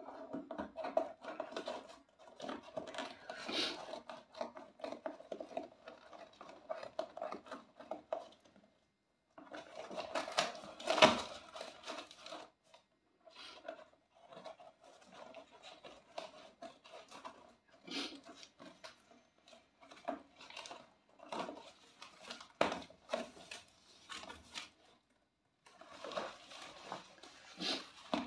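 Cardboard parcel sealed with packing tape being cut and torn open by hand: a run of scraping, tearing and crackling noises with sharp clicks, in bursts with a few short pauses.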